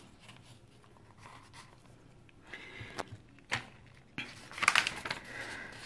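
Paper rustling as the pages of a softcover activity book are handled and turned: a couple of light taps about three seconds in, then a longer rustle of paper in the last two seconds.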